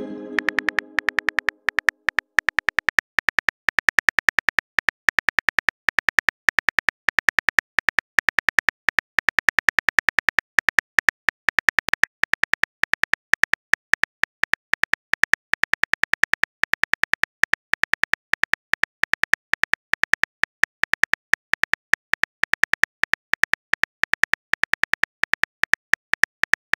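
Simulated phone-keyboard tap clicks, several a second and very even, as a text message is typed out letter by letter. The ringing tail of a message-sent tone fades over the first two seconds.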